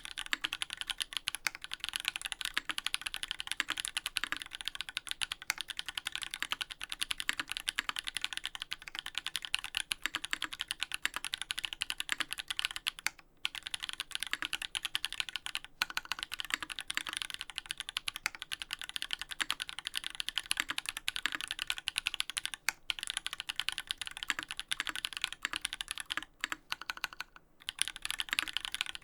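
Fast, continuous typing on a Duck Orion V3 custom mechanical keyboard with lubed Holy Panda tactile switches on an FR4 plate and GMK keycaps: a dense stream of keystroke clacks, with brief pauses a little before halfway and twice near the end.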